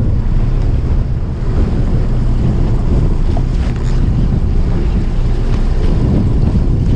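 Wind buffeting the microphone in a steady low rumble, over choppy sea washing alongside the boat.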